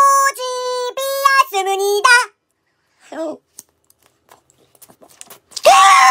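A high sung voice holds a few bright notes that step up and down for about two seconds, then stops. Next comes near quiet with a brief falling vocal sound and faint scattered clicks as a frozen ice pop is bitten and chewed. A loud shout breaks out just before the end.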